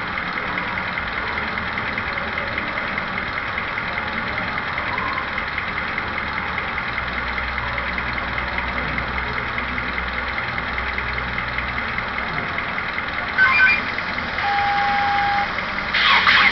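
Sound decoder of an HO scale Vossloh G2000 diesel model playing its steady track-noise effect over the diesel engine sound, through the model's small speaker. Near the end come a few short beeps and a held tone, then a crackly radio message begins.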